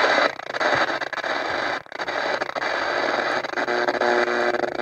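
X-Bass retro-style portable radio's speaker hissing with static between stations as its tuning knob is turned. The hiss drops out briefly near the two-second mark, and faint steady tones begin to come through it in the last second or so.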